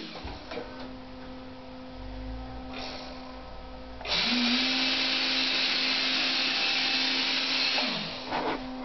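A 50 mm electric ducted fan on a homemade foam RC boat runs at low throttle. About four seconds in it spools up to a loud, steady rushing whine, holds it for about four seconds, then throttles back down near the end.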